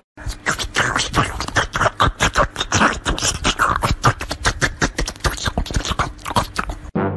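Orange tabby cat licking and smacking at soft food on a spoon held close to the microphone: a fast, uneven run of wet clicks, several a second.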